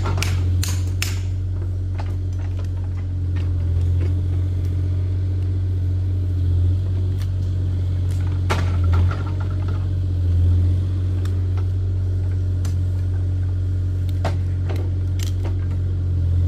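Kubota mini excavator's diesel engine idling steadily with a low hum. A few sharp clicks and knocks come from the PVC drop pipe being handled, a cluster in the first second and more around the middle and near the end.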